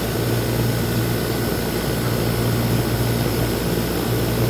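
A 1993 Heil 5-ton air conditioner condensing unit running steadily: a constant compressor hum under the whoosh of the condenser fan. The fan blade is mounted the wrong way round, so it moves little air, and the overheating unit sounds to its owner like it is struggling.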